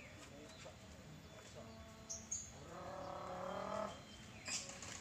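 A single drawn-out call lasting about a second in the middle, from a person or the cattle, with a brief high bird chirp just before it and a short hiss-like noise near the end.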